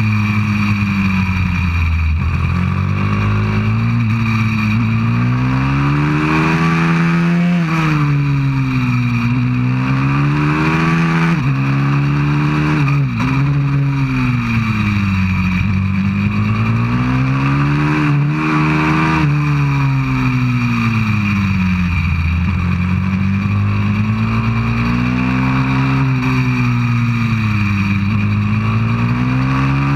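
A 190cc pit bike's single-cylinder four-stroke engine heard close up from the bike itself at full riding pace, its pitch climbing and falling in long sweeps as the rider accelerates out of corners and rolls off into them, with a few sudden drops in pitch.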